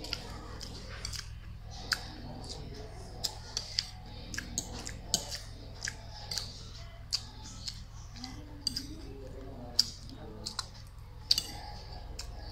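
Close-up eating sounds: chewing, with frequent sharp, irregular clicks and scrapes of a metal fork against the plate.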